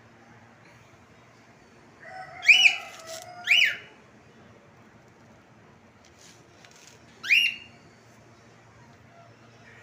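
Cockatiel giving three short, loud, rising whistled calls: two close together about two and a half seconds in, and one more about seven seconds in.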